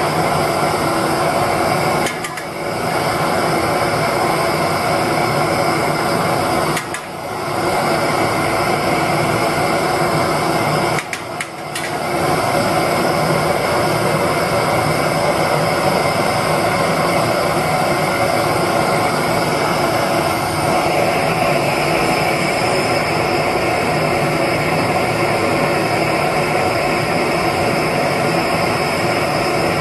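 Gas burner firing a small homemade crucible furnace for melting aluminium: a loud, steady rushing noise that dips briefly three times in the first twelve seconds.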